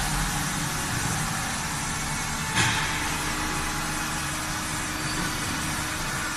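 Steady rumble and hiss of road traffic, with one sudden loud impact about two and a half seconds in: a car collision.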